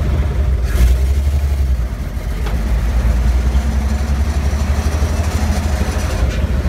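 1956 Willys jeep's engine running, heard from the driver's seat as the jeep moves, with a single clunk about a second in.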